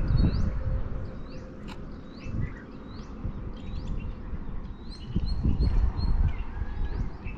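Wind buffeting the microphone in gusts, loudest at the start and again about five seconds in, while a bird calls over it in short rising chirps repeated many times.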